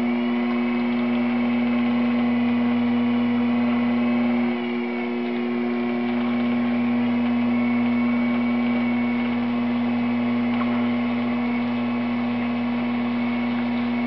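Electric potter's wheel running under load as clay is worked on it, its motor giving a loud, steady hum with a fainter high whine above it.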